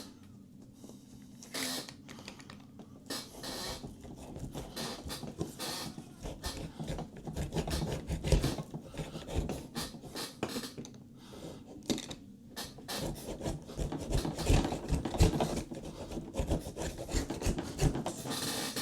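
Spline roller pressing screen spline into the groove of a window screen frame: irregular scratching and rubbing with small clicks, busier in the second half.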